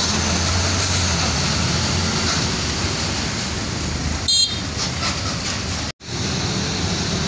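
Tour coach's diesel engine running close by, a steady low hum. About four seconds in, a short high horn toot sounds, and the sound cuts out for an instant near six seconds before the engine noise resumes.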